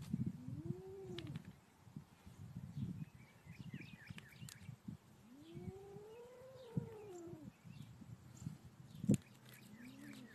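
A kitten giving drawn-out warning yowls at a goat, the defensive call of a cornered cat: three calls that rise and fall in pitch, one about half a second in, a longer one around six seconds in, and a short one near the end. Faint knocks and scuffs underneath, with one sharp knock shortly before the end.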